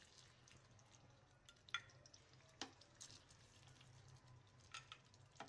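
Near silence with a few faint, short clicks and scrapes of a spoon serving aloo keema from the pan into a dish, over a faint low hum.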